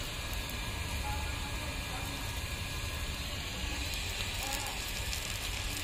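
Steady sizzling of rava-coated surmai (king mackerel) slices shallow-frying on a tawa over a wood-fired clay chulha, with a low rumble underneath.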